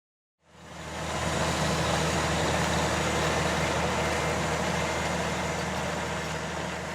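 Cebeco ZA 215 EH self-propelled sugar beet harvester running steadily, its DAF diesel engine giving a low, even hum. The sound fades in about half a second in.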